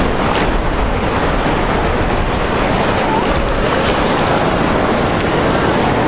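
Wind buffeting the microphone, a steady loud rushing, with light splashing from wading in shallow water.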